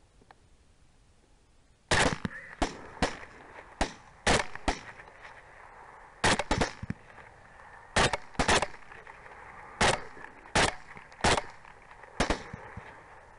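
Rapid rifle fire: about fifteen sharp shots, starting about two seconds in and coming at uneven intervals, some in quick pairs and threes. The rifles are shooting at feral hogs.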